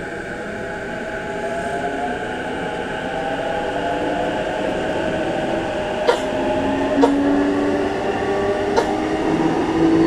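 JR East E233-5000 series electric train accelerating, heard from inside the passenger car: the traction motor whine rises steadily in pitch and the running noise grows louder. A few sharp clicks come in the second half.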